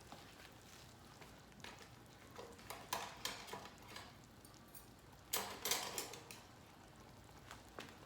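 Scattered light clicks and short rustling bursts of eating from a mess tin with wooden chopsticks, loudest about three seconds in and again around five and a half to six seconds in.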